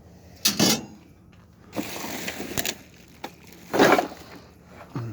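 Pieces of scrap metal clanking and rattling as they are handled and tossed onto a pile, with two louder clangs about half a second in and just before four seconds.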